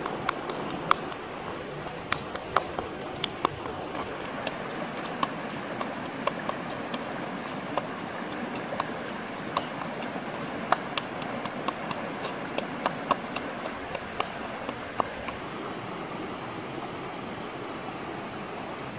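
Wooden pestle pounding chilies and garlic in a coconut-shell bowl: irregular sharp knocks, sometimes several a second, stopping a few seconds before the end. Under them runs the steady rush of a shallow rocky stream.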